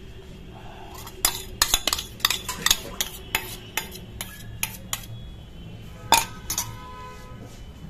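Metal spoon clinking and scraping inside a stainless steel bowl, scraping out the last of the beaten egg. It starts with a quick run of sharp clinks, and about six seconds in two louder strikes leave the bowl ringing briefly.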